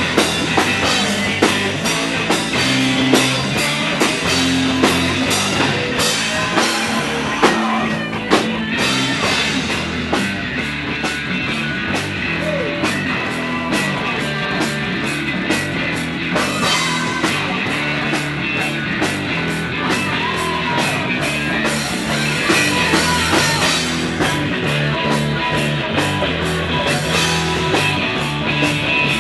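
Live rock band playing, with electric guitar and a drum kit driving a steady beat and frequent cymbal hits.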